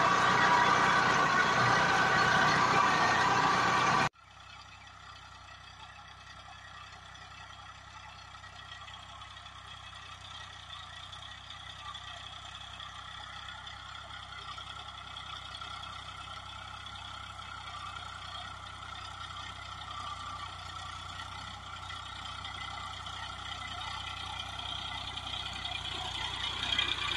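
New Holland 3230 TX Plus tractor's 45 hp three-cylinder diesel running steadily under load, heard up close. About four seconds in the sound cuts to the same tractor heard far off, faint and thin, growing steadily louder as it approaches.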